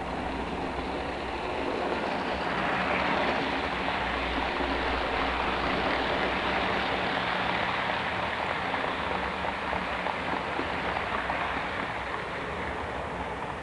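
Model freight train running past on layout track, its wheels rumbling and clattering over the rails. It grows louder about two seconds in and fades near the end.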